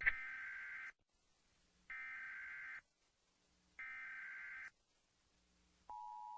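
Emergency Alert System SAME header: three bursts of warbling data tones, each just under a second long, with about a second of near silence between them. Near the end the steady two-tone EAS attention signal begins.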